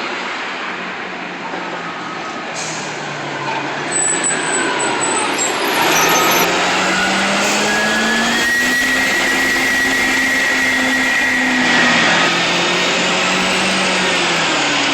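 Turbocharged Detroit Diesel Series 50 four-cylinder diesel in a 2002 NABI 40LFW transit bus pulling away. The engine note eases off, then climbs and holds before dropping again, with a thin high turbo whistle riding over it while the engine is held up.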